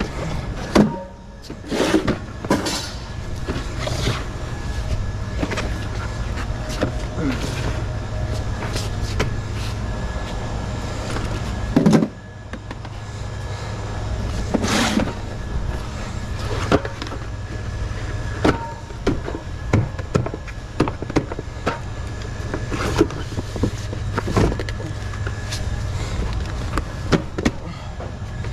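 A vehicle engine running with a steady low rumble, with many scattered knocks and clatters over it. A loud knock comes about twelve seconds in.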